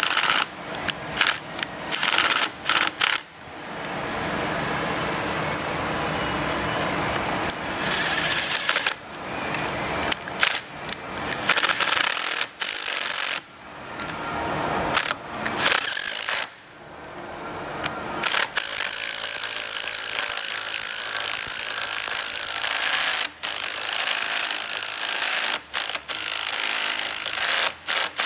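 Makita 18V cordless impact driver with a socket, driving in and tightening the handlebar clamp bolts on a motorcycle. It runs in short blips and longer runs of a few seconds, stopping suddenly between them, with a long steadier run in the second half.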